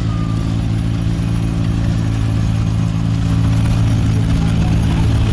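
An engine running steadily with a low, even hum, getting slightly louder a few seconds in.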